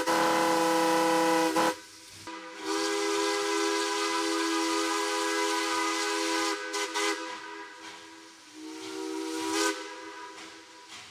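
Steam locomotive whistle blown from the cab by its pull cord, several notes sounding together. A loud blast cuts off about a second and a half in, a second blast lasts about four seconds, and a short blast comes near the end, with faint steam hiss between.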